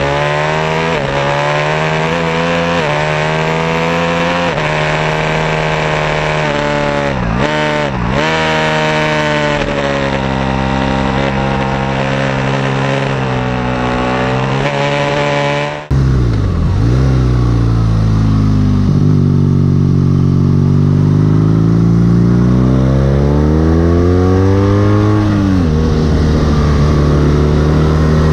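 Ducati 1199 Panigale's 90° V-twin at full throttle, revving up through the gears with quick upshifts and a brief dip and blips about 7–8 seconds in before pulling hard again. About halfway through it cuts to the deeper, lower-revving note of a BMW R nineT boxer twin, rising and easing off more slowly while riding.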